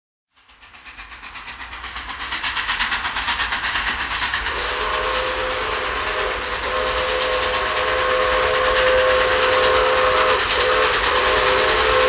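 Steam locomotive chuffing rapidly, fading in and growing louder over the first few seconds. From about four and a half seconds in, a steam whistle of several tones at once sounds a long blast, with two brief breaks near the end.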